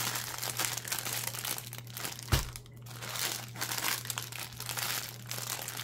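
Clear plastic wrap around rolls of small bagged diamond painting drills crinkling as it is handled, with one soft knock a little over two seconds in.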